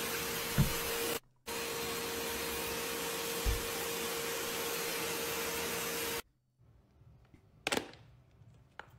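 Forced-air pet dryer blowing steadily with a humming tone. It cuts out briefly about a second in and stops about six seconds in, with two dull thumps along the way. Then come two sharp plastic clacks as cases are stacked.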